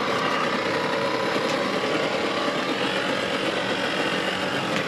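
Brushless (BLDC) motor of a large homemade RC boat running steadily, an even motor noise with a faint whine.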